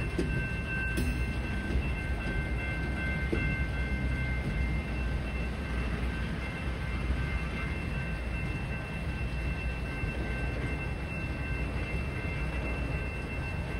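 Freight train of tank cars rolling past, a steady low rumble of wheels on rail with a steady high-pitched ring over it.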